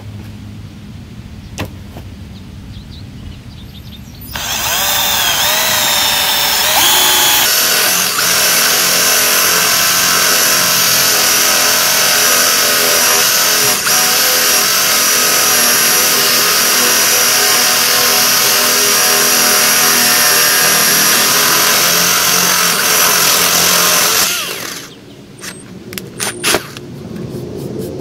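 12-volt cordless drill running a 13 mm spade bit into a wooden plank: the motor whine starts about four seconds in, wavers in pitch as the bit bites, then runs steadily under load for about twenty seconds before stopping. A few light clicks follow near the end.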